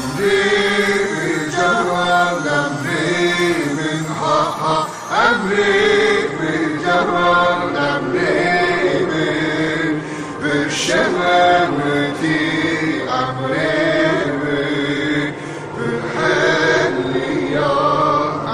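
Music: several voices singing together in a slow, chant-like style.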